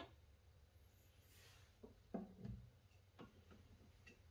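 Near silence broken by a few faint clicks and light knocks of small objects being handled, the loudest knock about two seconds in.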